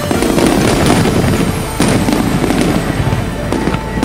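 Aerial fireworks shells bursting: three sharp booms a couple of seconds apart, with dense crackling between them.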